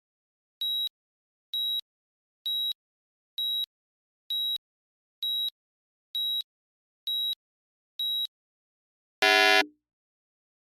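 Electronic timer countdown: ten short, high beeps about a second apart, then a louder, lower buzzer tone lasting about half a second, signalling the start of the timed interval.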